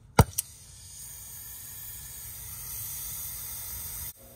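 Oxy-acetylene brazing torch with a rosebud tip burning with a steady hiss that grows slightly louder, after two sharp clicks near the start. The hiss cuts off abruptly near the end.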